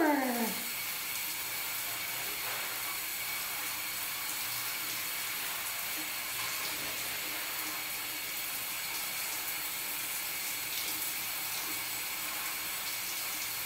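Shower spray running steadily in a tiled shower stall, an even hiss. A short falling call comes right at the start.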